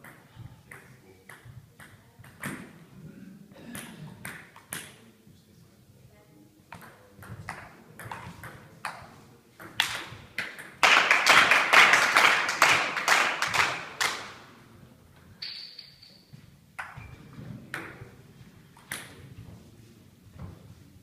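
Table tennis ball clicking off bats and the table in rallies and between points in a hall. About halfway through there is a louder burst of rapid clatter lasting a few seconds, and a brief high squeak follows.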